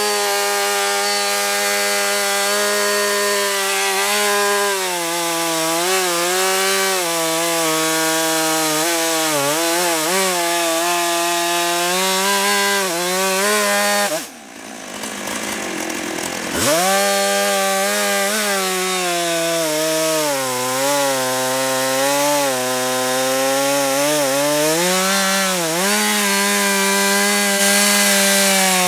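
Chainsaw on a chainsaw mill ripping a log lengthwise into half-inch boards, its engine pitch dipping and recovering under the load of the cut. About halfway through the engine sound breaks off for a couple of seconds, then comes back, rising in pitch.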